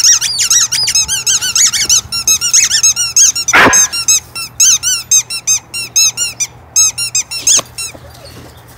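A dog chewing a squeaky rubber ball-and-rope toy, squeaking it rapidly over and over, several squeaks a second, with the squeaks spacing out and stopping near the end. A couple of brief knocks are mixed in.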